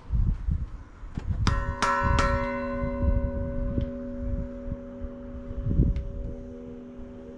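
Bronze church bell struck three times in quick succession, its deep tone ringing on and slowly fading. Low rumbles on the microphone come and go underneath.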